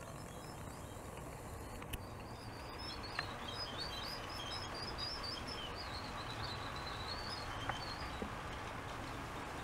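Quick, high bird-like chirps twittering for several seconds, starting a few seconds in and fading out near the end, over a steady low rumble and a few light clicks.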